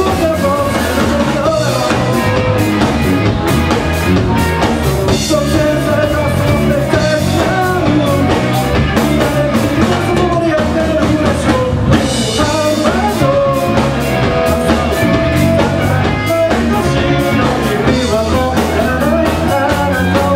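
A rock band playing live: electric guitars, bass guitar and a drum kit, with a sung vocal line over them.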